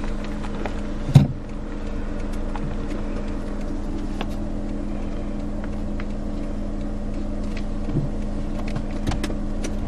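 Car running, heard from inside the cabin: a steady engine hum over road noise. A single sharp thump comes about a second in, and a few light clicks near the end.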